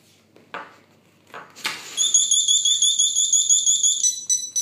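An EAS mini cable alarm tag going off: after a sharp rustling snap, it sounds a loud, shrill, rapidly pulsing beep, about eight beeps a second, for about two seconds, then switches to a different, steadier beeping pattern near the end.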